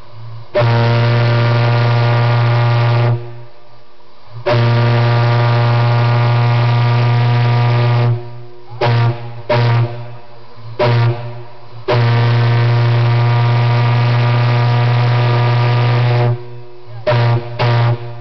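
8-inch Kaiser Liberty Ship steam whistle blowing one deep, steady note in a series of blasts. There are two blasts of a few seconds each, then three short toots, a longer blast of about four seconds, and two more short toots.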